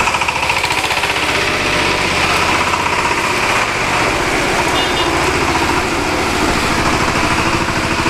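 Motorcycle engine running steadily while the bike is ridden along a road, with wind noise on the microphone.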